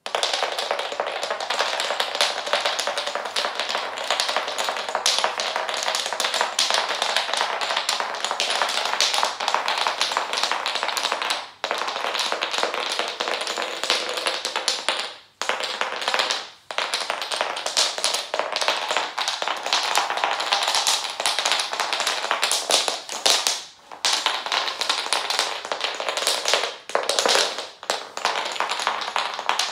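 Wooden blocks stood on end in a row being knocked over one after another, a rapid continuous clatter of wood on wood and on a hard floor, with a few short pauses.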